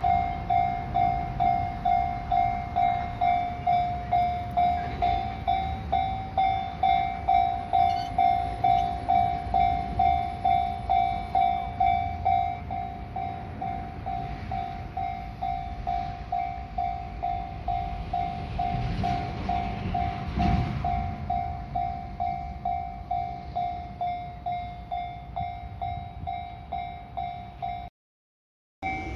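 Japanese railway level-crossing warning bell ringing with an even electronic clang, about two strokes a second, turning quieter about twelve seconds in. A train passes the crossing near the two-thirds mark, a short rush of rail and wheel noise under the bell.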